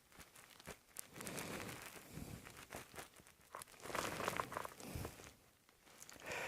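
Faint rustling and crinkling with scattered light clicks and soft thumps: movement or handling noise.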